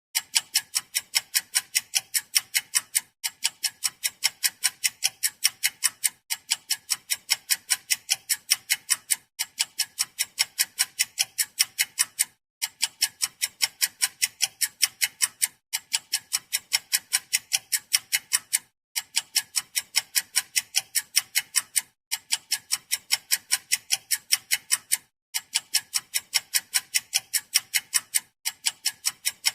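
Wall clock ticking fast and evenly, about four sharp ticks a second, with a brief gap every three seconds or so.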